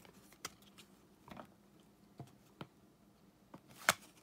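Stack of 2018-19 NBA Hoops basketball cards being flipped through by hand, the cards snapping and sliding against each other in about half a dozen soft clicks, the sharpest one near the end.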